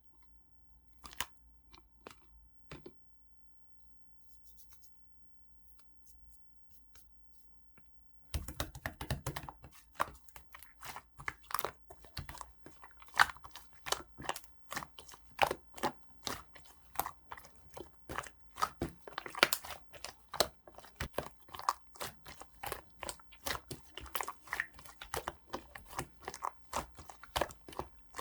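Pink slime topped with a clay layer being squished and pulled by hand: a few soft clicks at first, then from about 8 seconds in a dense run of sticky crackles, pops and tearing sounds.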